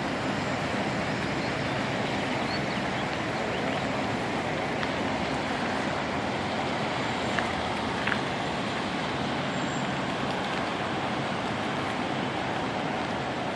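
Fast-flowing floodwater rushing with a steady, unbroken roar, with two faint clicks about halfway through.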